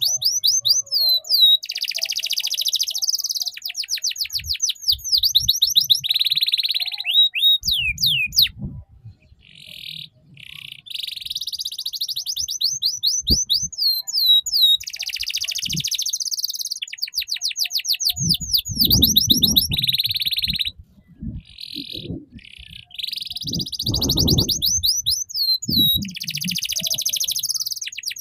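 Orange domestic canary singing a ngeriwik-style song: long, fast trills of quickly repeated high notes and sweeping whistles, broken by a few short pauses. Low rumbling noises run under the song for a while in the second half.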